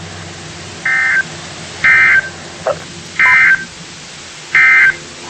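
Emergency Alert System end-of-message data bursts over the radio: four short, loud squawks of two-tone digital data, each about a third of a second long and roughly a second apart. They mark the end of a severe thunderstorm warning broadcast.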